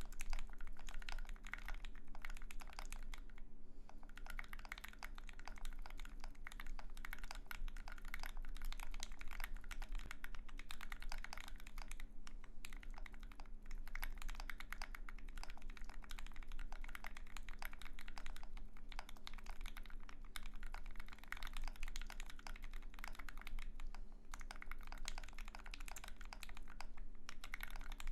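Steady fast typing on a mechanical keyboard: an aluminum-plate Austere Alice-layout board with lubed, filmed Alpaca linear switches and JTK tripleshot keycaps, giving a dense run of quick key strikes with a few brief pauses.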